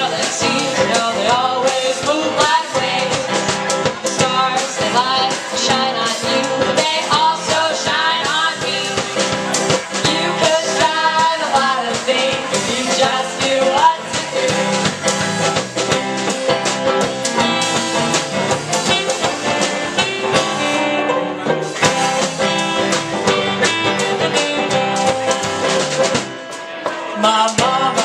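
A folk band playing a song, with guitar and drums, and what may be voices mixed in. The loudness dips briefly near the end.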